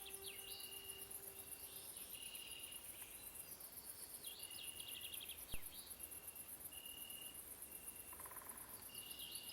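Faint nature soundscape of a steady, fast-pulsing high insect trill like crickets, with short whistled bird calls and quick chirps recurring every few seconds. A low held tone of the ambient music fades out in the first two seconds, and a single sharp click sounds about halfway through.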